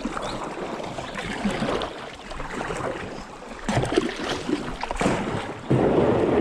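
Kayak being paddled on a river: water splashing and washing against the paddle and hull, with a few sharp knocks and a louder stretch of splashing near the end.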